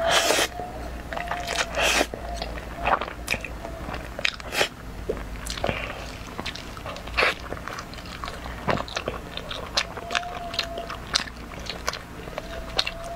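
A person eating. A mouthful of spicy instant noodles is slurped in at the start and again about two seconds in, then there is chewing with many short wet clicks and crunchy bites.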